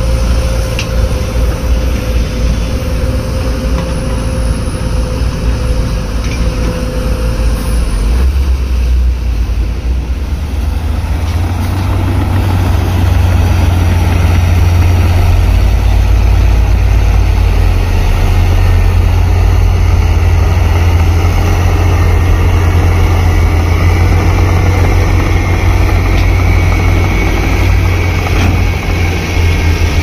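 Heavy construction machine's engine running steadily with a low drone, which gets louder about twelve seconds in.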